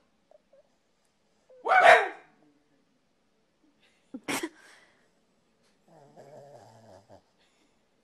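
Pembroke Welsh corgi barking: one loud bark about two seconds in and a shorter, sharp one around four seconds.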